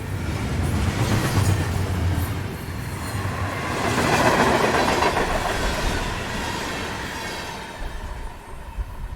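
Train going by on the rails, a rumbling clatter that builds to its loudest about four to five seconds in and then fades away, with a thin steady squeal from the wheels through the second half.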